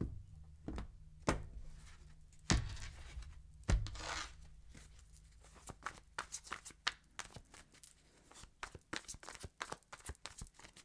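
Tarot cards being handled and shuffled: a few separate light taps, then from about five seconds in a long run of quick, light card clicks.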